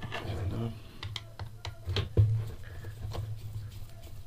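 Scattered light clicks and taps of a disassembled heat gun's small plastic and metal parts being handled, the sharpest knock about two seconds in, over a low steady hum.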